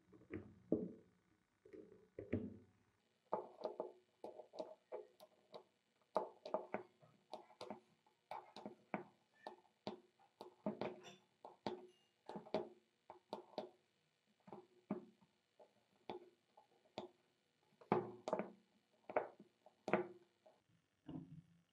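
A thin pick scraping out the slots between the copper commutator bars of an electric drill's armature, in short strokes about one or two a second, with small clicks of metal on metal.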